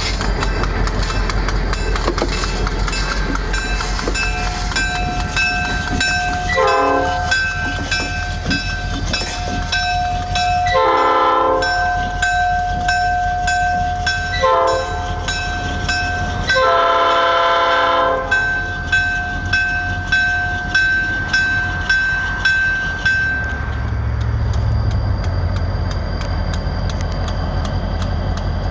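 Nickel Plate 901 diesel locomotive running light with its engine rumbling, sounding four blasts of its air horn, short, long, short, then the longest, while its bell rings steadily, the bell stopping about three quarters of the way through.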